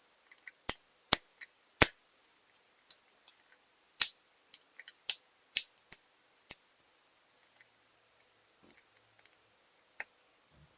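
Irregular sharp clicks and taps of hard plastic and small parts from a Lenovo ThinkPad T420 laptop being taken apart, about a dozen scattered through, the loudest near the start and about four seconds in.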